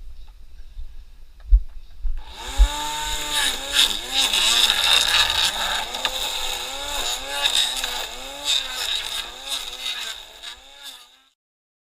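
String trimmer (whipper snipper) engine revving repeatedly, its pitch rising and falling again and again over the hiss of the spinning line, starting about two seconds in after a few low knocks and cutting off suddenly near the end.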